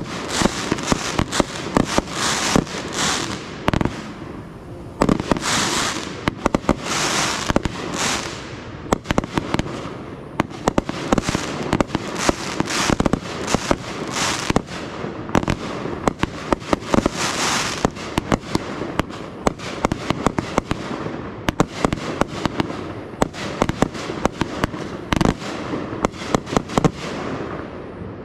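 Fireworks display: a rapid, near-continuous string of sharp bangs with repeated crackling, hissing bursts.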